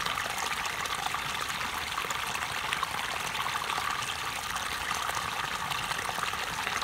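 Water flowing into shallow water and churning up a patch of bubbles: a steady bubbling trickle speckled with fine pops.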